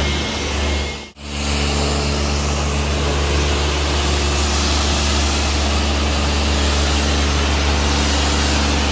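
High-pressure washer running: a steady motor drone with the hiss of the water jet, broken by a brief drop-out about a second in.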